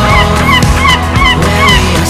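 Instrumental background music: a fast repeating figure of short bent notes, several a second, over a steady bass.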